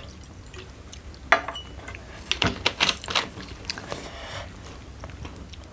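A person chewing food with wet mouth smacks and clicks, loudest in a quick run around the middle.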